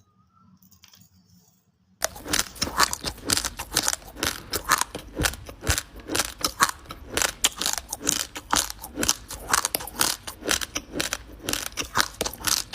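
Close-up crunching of dry raw basmati rice grains being chewed: rapid, irregular crackling crunches that start suddenly about two seconds in after a near-silent pause.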